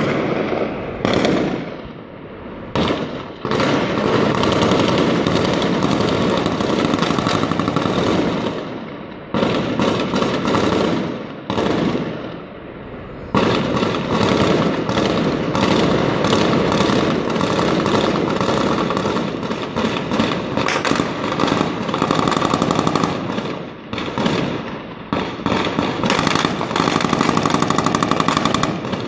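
Long runs of rapid automatic gunfire, shots packed closely together for several seconds at a time. There are brief lulls about two seconds in, around ten to thirteen seconds, and near twenty-four seconds.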